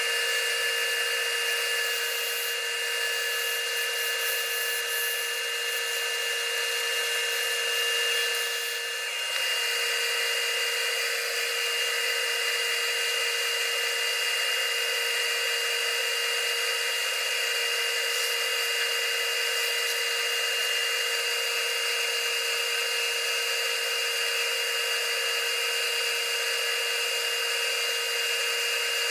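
Wood lathe running steadily, a constant high machine hum with a short dip in level about nine seconds in.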